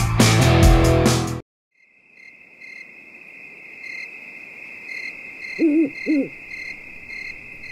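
Music cuts off suddenly about a second and a half in; then a night ambience of crickets trilling steadily, with an owl hooting twice about six seconds in.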